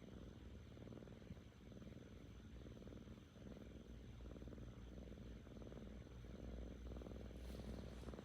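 Seven-month-old kitten purring close up: a low, contented rumbling purr that swells and eases with each breath in and out.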